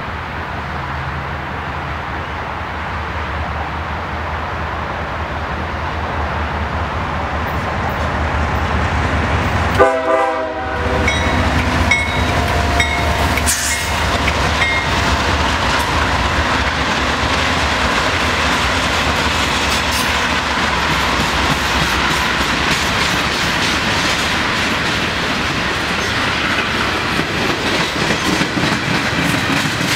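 GE diesel locomotives, an ES40DC leading three C40-8Ws, approach with a low engine rumble that builds and passes loudly about ten seconds in. Freight cars then roll by with the steady clickety-clack of wheels over rail joints.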